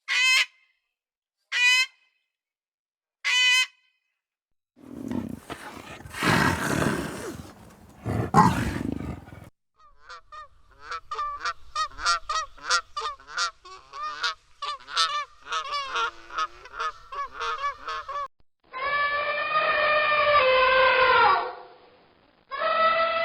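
A run of farm animal calls, one after another: four short honking calls, then a loud rough noisy stretch, then a long burst of rapid chattering calls, then two long calls that fall in pitch.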